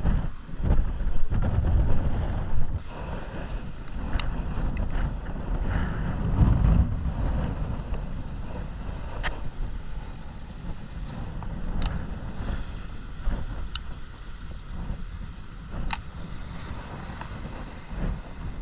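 Wind buffeting the microphone in uneven gusts, a heavy low rumble, with a few faint sharp clicks scattered through it.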